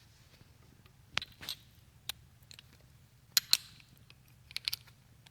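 Short sharp metallic clicks and clinks of ratchet socket extensions being handled and fitted together. A few scattered clicks, with a louder close pair about three and a half seconds in.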